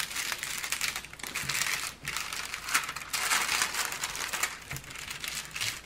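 Clear plastic protective film crinkling as it is handled and pulled back off a diamond painting canvas, a continuous crackle.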